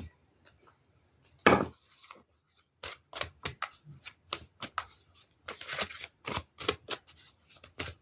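A deck of tarot cards being handled and shuffled on a table. There is a thump about a second and a half in, then a run of quick, sharp card slaps and rustles that grows denser toward the end.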